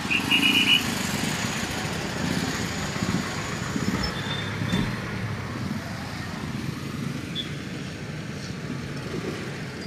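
Road traffic edging past at close range: motorcycle and other vehicle engines running with tyre noise, and a brief horn beep near the start.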